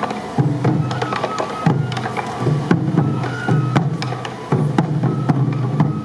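Sansa odori accompaniment: taiko drums struck in a fast, sharp rhythm, with short high flute notes over them.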